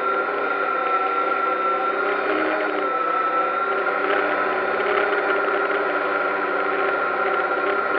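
DJI Phantom quadcopter's electric motors and propellers in flight, heard from the camera on the aircraft: a steady whirring whine with a strong high tone that drops slightly in pitch about three seconds in.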